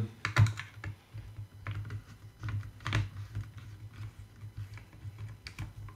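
Irregular light clicks and ticks of a small screwdriver and fingertips working a screw out of the plastic gimbal guard of a Hubsan Zino Pro drone, over a low steady hum.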